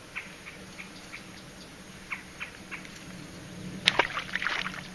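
Light ticking, then a burst of splashing about four seconds in as a small hooked largemouth bass thrashes at the water's surface while being brought in.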